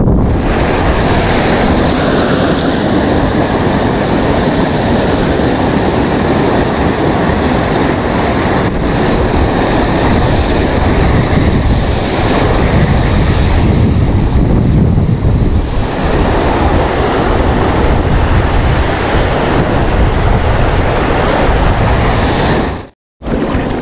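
River water rushing over a small weir or rapids close by, a loud steady wash of white water, with wind buffeting the microphone. It breaks off for a moment near the end.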